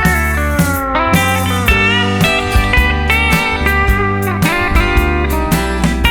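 Country song instrumental break: a steel guitar plays sliding notes over bass and a steady drum beat.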